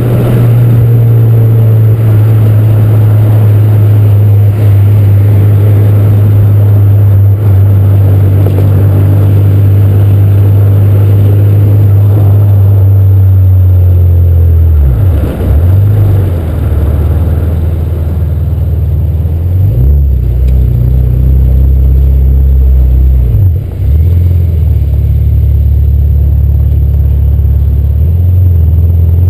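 Supercharged K20/K24 engine and exhaust of a 2008 Honda Civic Si, heard loud and close from the car's side while driving. It holds a steady cruising drone for about fourteen seconds. Then the note drops and wavers a couple of times as the car slows, settling into a lower steady run near the end.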